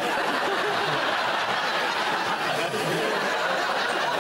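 Studio audience laughing steadily, a dense mass of many people's laughter with no pauses.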